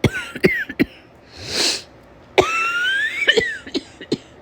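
A woman with a summer cold coughing. A short cough comes at the start, a noisy breath about a second and a half in, then a longer hoarse, voiced cough that rises in pitch.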